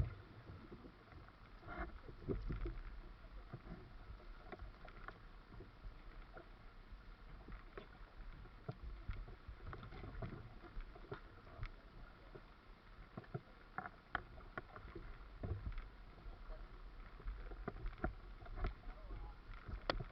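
A small fishing boat on rough sea: a low rumble with water noise against the hull, broken by many irregular knocks and clicks.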